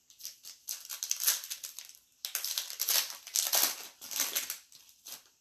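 Crinkling of a trading-card pack's wrapper as it is opened and handled, in two long rustling stretches.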